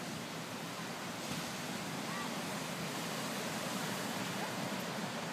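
Small waves breaking and washing up on a sandy beach, a steady, even noise.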